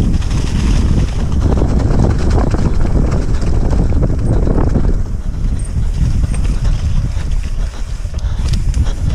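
Wind buffeting a helmet or chest camera's microphone as a mountain bike descends a rough singletrack, with tyre rumble and a busy chatter of rattles and clicks from the bike over rough ground, the rattling thinning out about halfway through.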